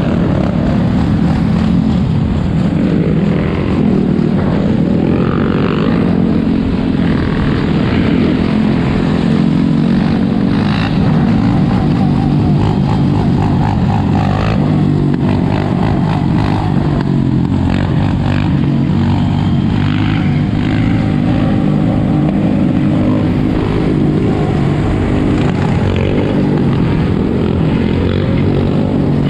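Loud, steady engine noise that never lets up, a continuous low drone with no breaks or pauses.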